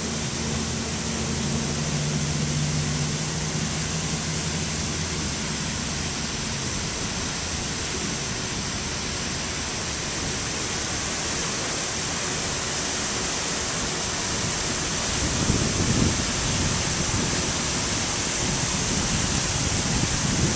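Buckingham Fountain's many water jets spraying and splashing into the basin: a steady rushing hiss. A low hum lies under it for the first several seconds, and gusts of wind buffet the microphone in the last few seconds.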